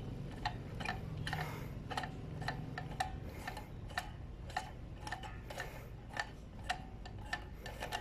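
Sharp metallic clicks, about two a second and slightly uneven, from a hand tool loosening a nut on the e-bike's front end, over a faint low hum.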